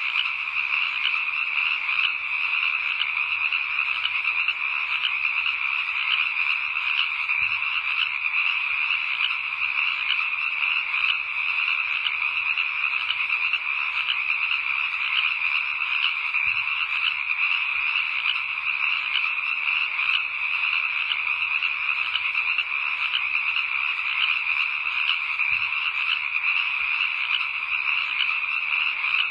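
A dense, steady night chorus of frogs calling, unbroken.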